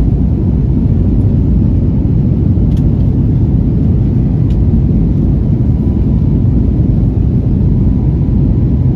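Jet airliner cabin noise: a loud, steady low rumble of the engines and airframe with a faint thin whine above it.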